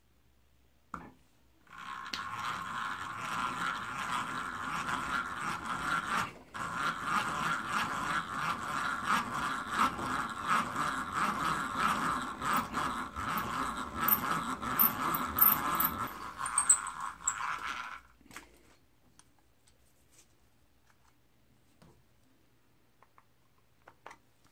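Two-speed enclosed breast drill being hand-cranked, giving a continuous gritty mechanical noise for about sixteen seconds. The noise breaks off briefly about six seconds in, then runs on until it stops.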